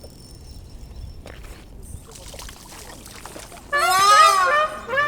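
Faint outdoor background hiss with a few light clicks. About three and a half seconds in, a loud pitched melodic phrase wavers up and down for about a second, followed near the end by steady held notes: the opening of background music.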